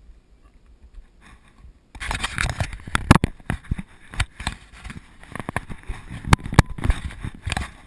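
Scraping and knocking of a hiker scrambling down rough granite rock, starting suddenly about two seconds in, with many sharp knocks and scuffs close to the microphone.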